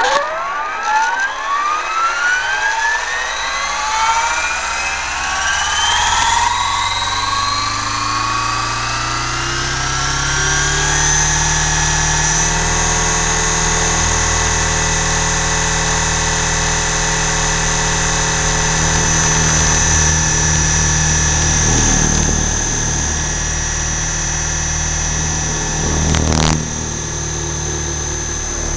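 Align T-Rex 600 RC helicopter, heard through a camera mounted on it, spooling up: a set of rising tones climbs for about ten seconds as the rotor comes up to speed, then holds as a steady high-pitched whine. A short loud burst of noise comes near the end.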